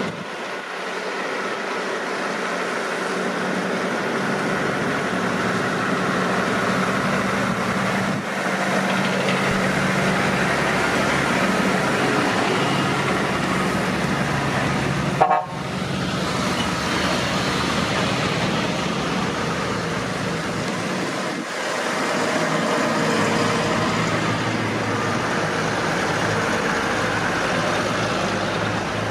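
Several tractor engines running steadily as the tractors drive by, with a short sharp sound about halfway through.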